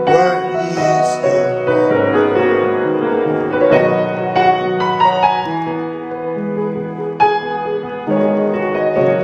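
Piano or keyboard playing slow, held worship chords that change every second or two, with fresh chords struck about four seconds in and near the end.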